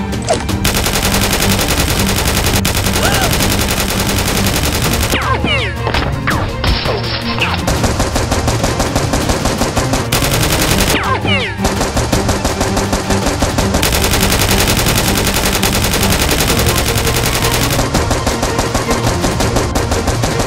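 Automatic-gunfire sound effects in rapid continuous bursts, with short lulls about five seconds in and again about eleven seconds in.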